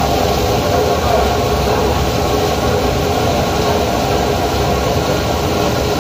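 Textile washing machine running: wet knitted-fabric ropes drawn over its rotating steel roller, with water pouring off and splashing, over a steady mechanical hum.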